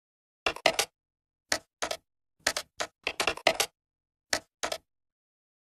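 Typing sound effect: sharp keystroke clicks in uneven little runs with short gaps between them, starting about half a second in and stopping just before the end.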